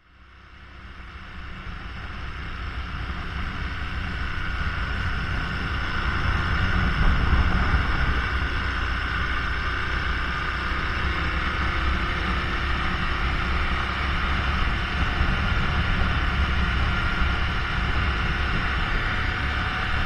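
Onboard sound of a BMW F750GS parallel-twin motorcycle riding at road speed: steady engine and road noise under heavy wind rush on the microphone. It fades in over the first several seconds, then holds steady.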